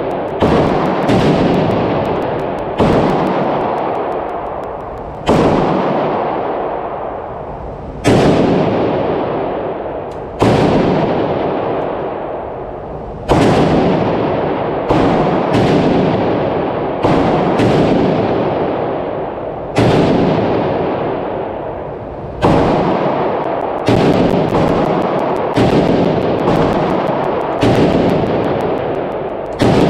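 Arsenal SAM7R, an AK-pattern rifle in 7.62x39mm, firing about nineteen semi-automatic single shots at an uneven pace, from under a second to nearly three seconds apart. Each shot is loud and sharp, with a long echoing tail from the indoor range.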